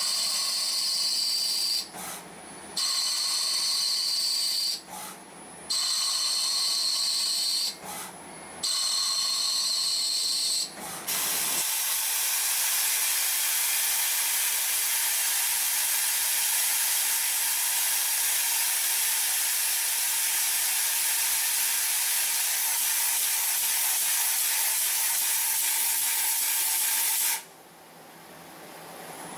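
CNC lathe machining. First come four cutting passes of about two seconds each, with short breaks between them and a high whine. Then there is a steady loud hiss for about fifteen seconds while the lathe turns a brass bar, and the hiss drops away near the end.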